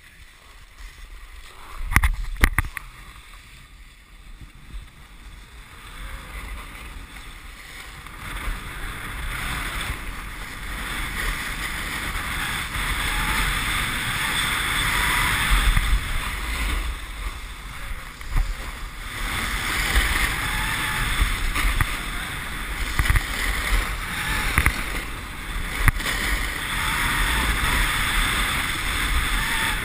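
Wind rushing over a GoPro's microphone together with the hiss and scrape of edges sliding on hard, icy snow during a run down a ski slope, building up as speed picks up over the first several seconds. A couple of sharp knocks come about two seconds in.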